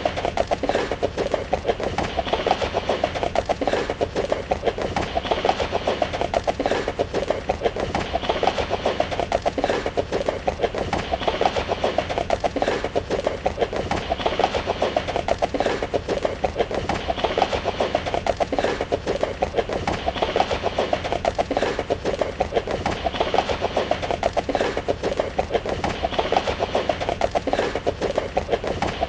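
Hoofbeats of a running horse: a fast, unbroken drumming of hooves on the ground, repeating in the same pattern about every three seconds.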